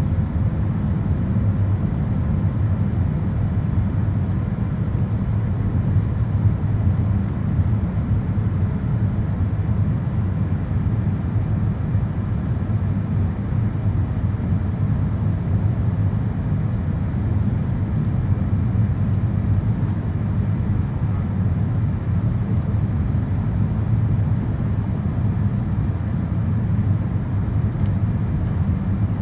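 Steady low drone of a Boeing 787 airliner heard from inside the cabin: engine and airflow noise holding an even level throughout.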